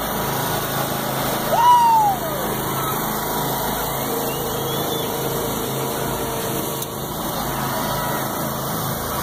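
Several riding lawn tractor engines idling together in a steady low hum. About a second and a half in, a brief loud high-pitched cry rises sharply and then falls away.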